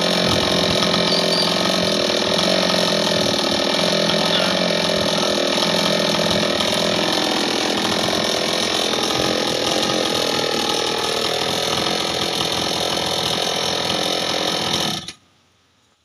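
Petrol chainsaw's two-stroke engine idling steadily, then cutting off suddenly about a second before the end.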